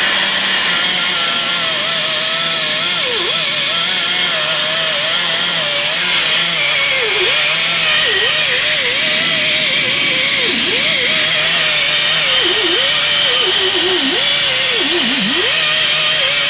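Right-angle die grinder with a small abrasive disc grinding paint, rust and scale off steel to bare metal, preparing it for a clean weld. It runs with a steady high whine over a rushing hiss, and the pitch dips repeatedly as the disc is pressed into the metal.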